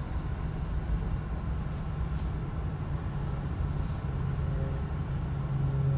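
Steady low engine rumble with no clear changes in pitch or level.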